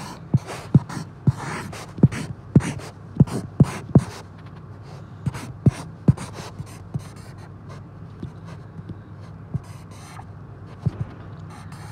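Felt-tip marker writing: a quick run of sharp taps and scratchy strokes that thins out after about four seconds to a few scattered strokes.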